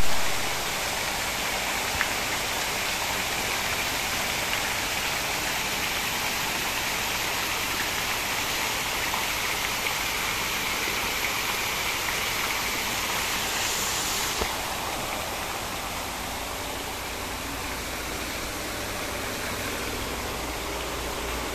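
Water showering down through a cooling tower's slatted fill like heavy rain and splashing into the basin below: a steady hiss of falling water that softens a little about two thirds of the way through.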